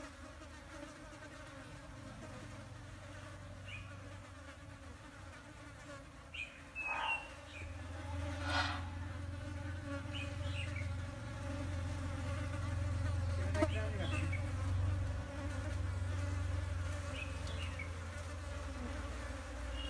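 Flies buzzing steadily around a foul-smelling elephant foot yam flower, drawn to its carrion-like scent. The buzzing gets louder about a third of the way through. A few brief high chirps and a couple of short noises come over it.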